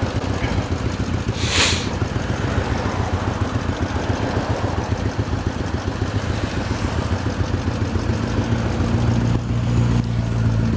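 Royal Enfield Bullet 500's single-cylinder four-stroke engine idling steadily while stopped in traffic, alongside another motorcycle close ahead. There is a brief hiss about one and a half seconds in, and the engine note grows louder near the end.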